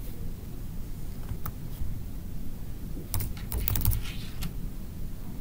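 Computer keyboard typing: a couple of single keystrokes, then a quick run of keystrokes about three seconds in.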